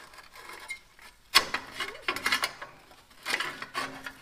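Thin tin heat shield on the passenger-side exhaust manifold of a 1977 Chevrolet C10 being bent and torn off by hand: three bursts of metallic scraping and clinking, the sharpest about a second and a half in. The loose shield is the owner's suspect for the truck's rattle under light throttle.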